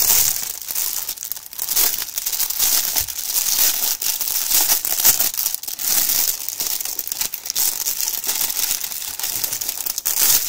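Clear plastic wrapping crinkling continuously as it is handled and pulled off a bundle of small plastic bags of diamond-painting drills, a dense crackle with many sharp crackles through it.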